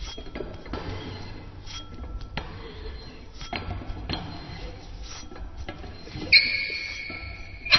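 Metal valve handwheel being turned: scraping and scattered small clicks and creaks, then about six seconds in a sharp metallic clank that rings for over a second.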